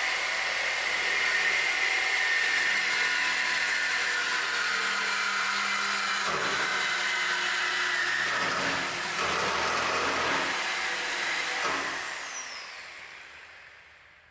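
High-speed power tool running with a steady high whine, its sound changing under load through the middle as it cuts through the exhaust pipe to take the old muffler off. About twelve seconds in it is switched off and spins down with a falling whine.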